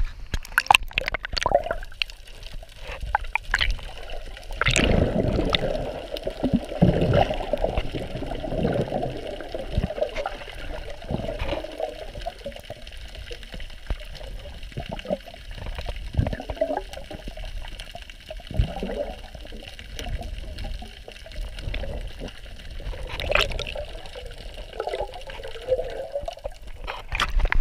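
Seawater sloshing and gurgling heard muffled with the camera underwater, coming in irregular surges as a swimmer moves through the sea.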